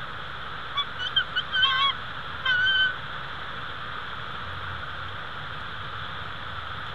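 Bald eagle calling: a quick run of short, high chirping notes about a second in, then one longer wavering note, over a steady background hiss.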